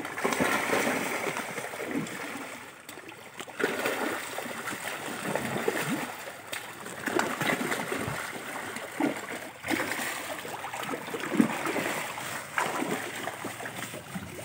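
A crowd of large fish thrashing and splashing at the surface of a river, a busy run of irregular water splashes and slaps that swells and eases in waves.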